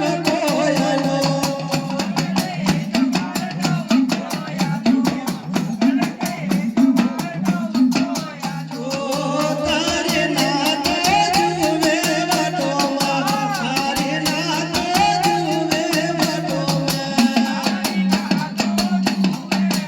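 Live Gujarati dakla devotional music: a melody sung over fast, dense drumming and rattling percussion, with a low held note underneath.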